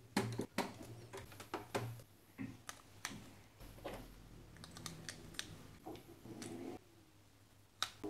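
Plastic Lego bricks and Technic parts clicking and clattering as they are handled and pressed together by hand: a run of irregular, sharp clicks.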